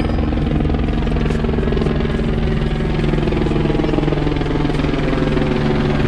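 Helicopter flying overhead: a fast, steady beat from the rotor over a steady engine hum.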